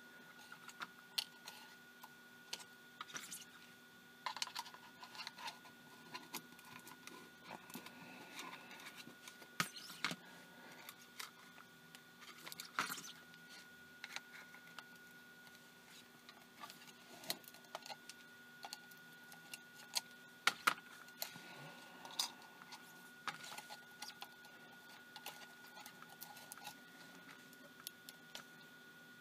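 Irregular small clicks, taps and rustles from hands and a thin metal probe handling an image intensifier tube assembly, its wires and its metal foil shield.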